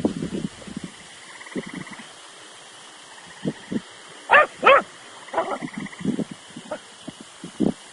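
A dog barking in short bursts, with two loud barks close together a little past the middle and softer, shorter barks around them.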